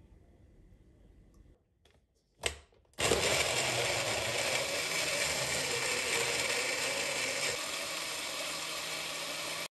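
Countertop blender starting up and running steadily at full speed, puréeing chunks of tomato, cucumber, pepper and garlic with olive oil into a smooth soup. A short knock comes about half a second before the motor starts.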